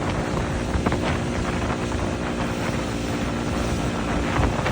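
60 hp Mercury outboard motor running steadily, pushing the boat along at speed, with wind buffeting the microphone.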